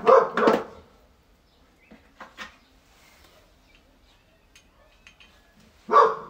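A dog barking, a short run of barks at the start and another bark near the end. Faint metallic clicks and taps come in between as brake parts are handled at the wheel hub.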